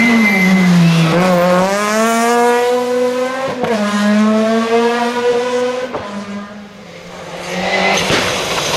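Rally car engine accelerating hard, its pitch climbing, dropping briefly at a gear change about three and a half seconds in, then climbing again before the car moves away and the sound fades. A thin tyre squeal rings at the start, and a rougher noisy rush builds near the end.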